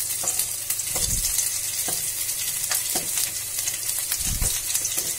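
Hot oil sizzling in a kadhai as grated ginger and chopped green chillies fry in it, with several brief ticks over the steady hiss.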